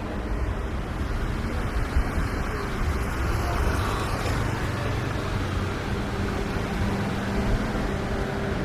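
Outdoor traffic rumble, with a steady engine hum that comes in about six seconds in and holds.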